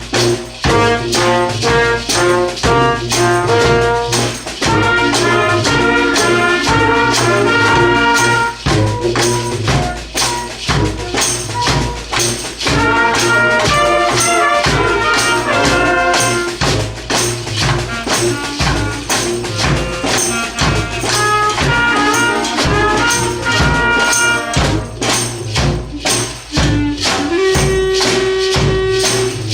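A HONK-style street band of saxophones, brass and tuba playing a rock tune together over a steady percussion beat, the horns holding notes and moving in chords.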